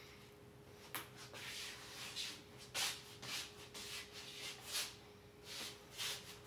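Soft shuffling scuffs of someone walking about, irregular at roughly one or two a second, over a faint steady hum.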